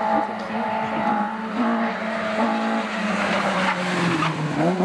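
Rally car engine held at high revs as the car climbs toward the listener, the note breaking briefly a few times. A rush of engine and tyre noise comes as it passes close, about three to four seconds in, and the pitch dips and then climbs again near the end.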